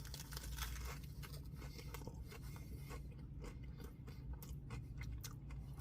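A person chewing a mouthful of Nashville hot chicken biscuit, with soft, irregular crunching from the fried chicken.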